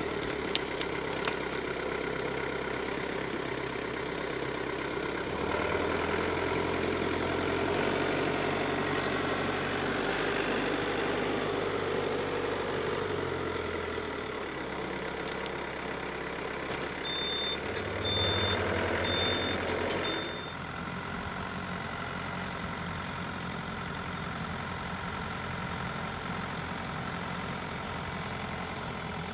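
An engine running steadily, its note shifting a few times, then dropping in level about twenty seconds in.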